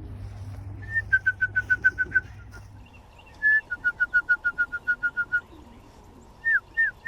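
Whistled trapping call for racing pigeons: a longer note followed by a fast run of short identical peeps, about seven a second, heard twice, then slurred falling whistles about three a second near the end.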